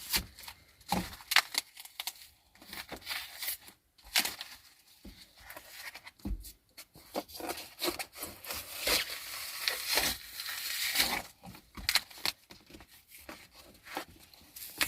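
Irregular scraping and rubbing from hand work on the van's floor, broken by sharp knocks, busiest about two-thirds of the way through.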